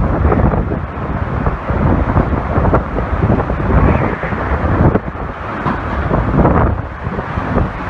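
Strong gusting storm wind buffeting the microphone: a loud, uneven rumble that swells and drops from one gust to the next.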